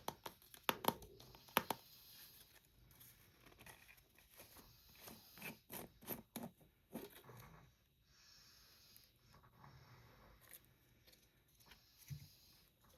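Candy packaging being handled and torn open: soft rustling and tearing, with a few sharp clicks in the first two seconds.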